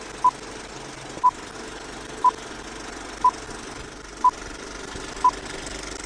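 Film-leader countdown beeps: six short identical beeps at one pitch, one each second, over the steady clattering whirr of a film projector running.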